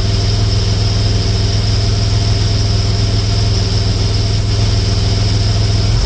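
1992 Toyota 4Runner engine idling steadily with the air conditioning switched on, its AC system being charged with R134a.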